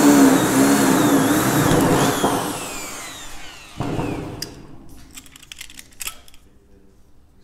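Electric drill running under load, with a wavering whine, then released about two seconds in and winding down in falling pitch. A single metallic knock comes just before four seconds, followed by a few light clicks.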